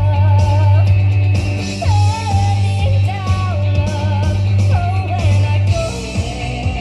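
Rock music with a singing voice over guitar and a heavy bass.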